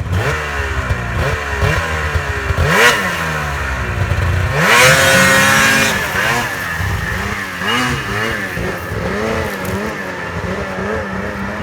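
Snowmobile engine revving up and down over and over, with short bursts of throttle and a longer full-throttle pull about five seconds in.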